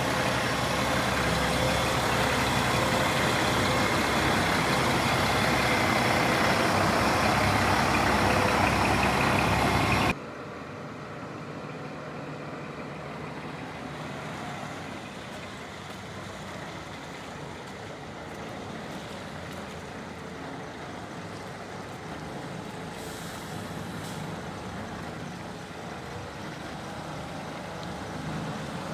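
Scania R480's six-cylinder diesel engine running close by, loud and steady, for about ten seconds; then an abrupt cut to a truck engine running much more quietly in the distance, with a brief hiss about two thirds of the way through and the engine growing slightly louder near the end.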